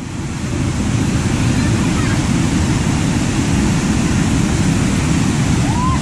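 Water of a small waterfall pouring and splashing, a steady deep rushing with no break. A faint voice calls out near the end.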